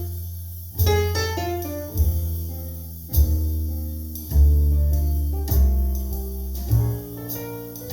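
Jazz piano trio recording played back over Definitive Technology Mythos ST loudspeakers: slow piano chords and melody over deep, ringing upright bass notes that come about every second or so, with light cymbal strokes.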